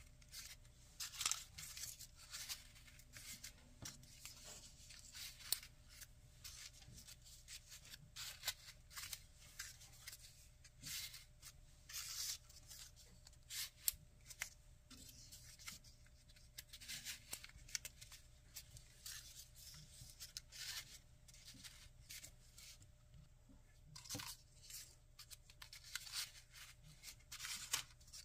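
Folded paper origami units rustling and crinkling as hands grip and press them into the ring of a 3D origami swan, in many short, irregular crackles.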